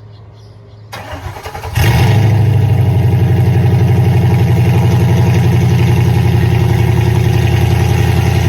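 Car engine cold start: the starter cranks briefly about a second in, then the engine catches and runs loudly and steadily.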